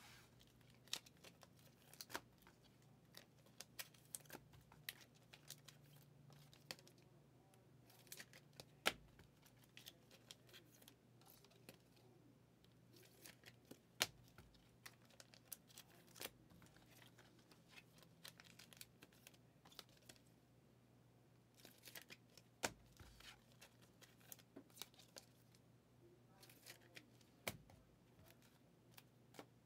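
Faint, scattered clicks and light rustling of trading cards being handled and sorted by hand, over a faint steady hum.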